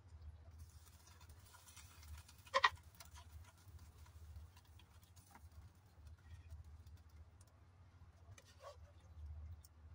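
A wok and a wooden spatula knocking against a plate as stir-fried noodles are scraped out of the wok: one sharp knock about two and a half seconds in and a few light clicks later. Underneath is a faint low steady hum.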